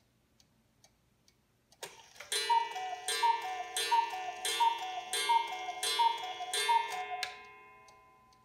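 August Schwer mechanical cuckoo clock: the pendulum ticks faintly, then about two seconds in the movement clicks and the bellows-driven cuckoo calls over and over, each call a high note falling to a lower one, before fading out near the end.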